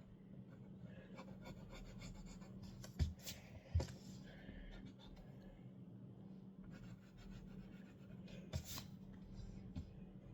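Marker tip drawing short strokes on paper, a faint scratchy rubbing, with a few light knocks: two about three to four seconds in and one more later.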